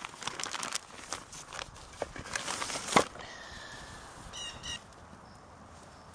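Plastic bag of firewood crinkling and rustling as it is lifted and handled, ending with a sharp knock about three seconds in. After that it is quieter, and a bird calls briefly a little later.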